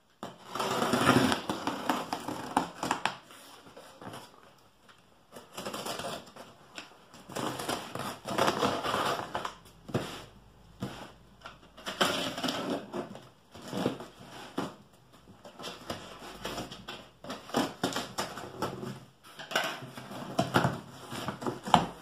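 Scissors slitting the packing tape on a corrugated cardboard box: irregular bursts of scraping and crackling tape and cardboard. Near the end the box flaps are pulled open.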